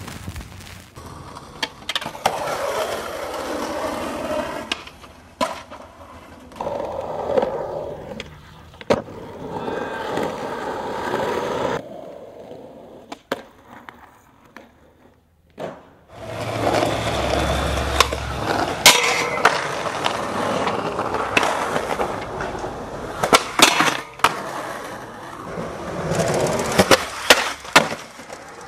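Skateboard wheels rolling on concrete, broken by many sharp clacks and impacts of the board on the ground. There is a quieter stretch about midway.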